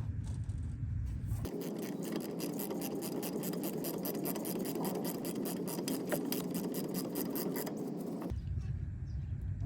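A 3/8-inch ratchet clicking steadily at about five clicks a second as the 14 mm rear brake caliper bolt is run in, starting about a second and a half in and stopping near the end.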